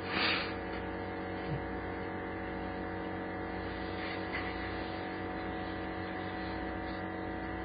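A steady machine hum holding several fixed pitches, with a brief hiss of noise right at the start.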